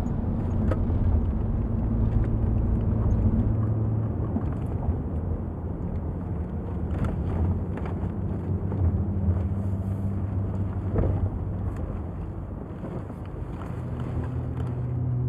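Steady engine hum and road noise heard from inside a moving car, with a few light knocks.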